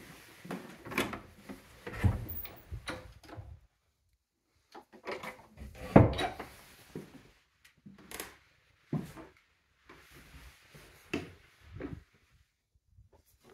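Irregular knocks and thuds, roughly one a second, from someone walking on wooden floors and handling doors, with the loudest knock about halfway through.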